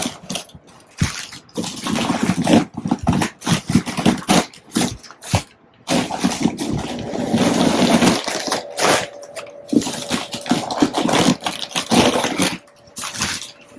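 Packing stuffing being pulled out of a handbag, crinkling and rustling in irregular handfuls.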